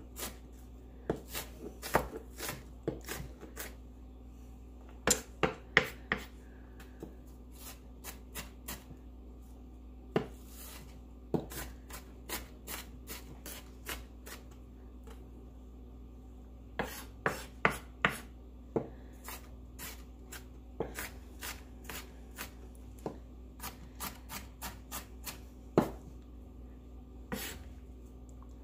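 Kitchen knife dicing a red onion on a wooden cutting board: sharp knocks of the blade on the board, coming in quick runs of strikes with pauses between them.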